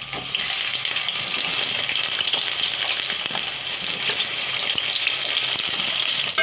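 Sliced onions frying in hot oil, a steady sizzle with fine crackling as more onion slices go into the pot.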